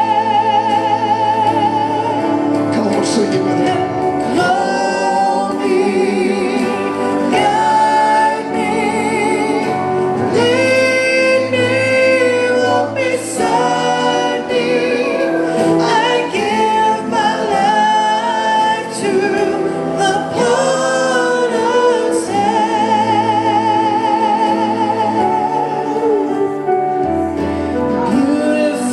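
Gospel worship song: voices singing long, wavering notes over steady low bass notes.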